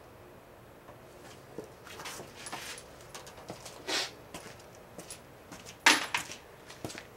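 Scattered light metallic clinks, knocks and rustles of gear being handled at a wooden shooting bench, with one sharp clack about six seconds in.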